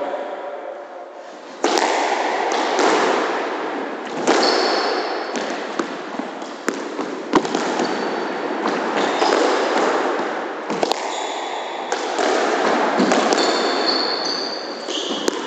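Squash rally: the ball striking rackets, walls and the wooden floor at irregular intervals of a second or two, with short high squeaks of court shoes on the floor between the hits.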